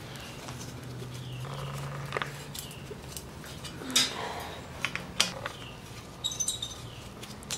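Hand deburring tool scraping around the inside edge of a freshly cut 3/8-inch stainless steel tube, making short, intermittent scrapes and small high squeaks of blade on metal. A low steady hum runs underneath.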